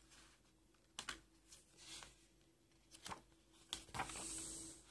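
Faint hand handling of a paper DVD booklet and card packaging: a few light clicks and taps, then a short papery rub just after four seconds in as the booklet is opened.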